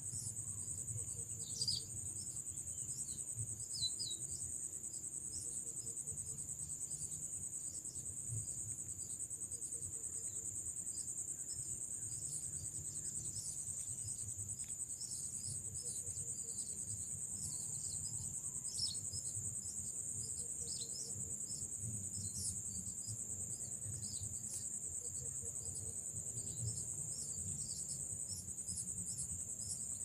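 Insects trilling steadily at a high pitch, cricket-like, with many short bird chirps scattered throughout.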